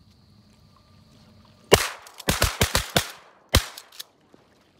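A volley of shotgun shots at ducks from more than one gun: a first shot just under two seconds in, a quick string of about five, then a last shot about a second later.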